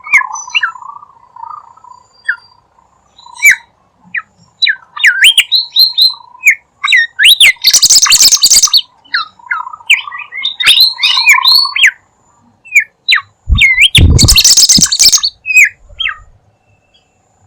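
Bimoli bird song of the kind played as a lure call: a rapid string of short whistled chirps that slide up and down in pitch. Twice it breaks into a loud, harsh rasping burst, once about eight seconds in for about a second, and again around fourteen seconds for about two seconds.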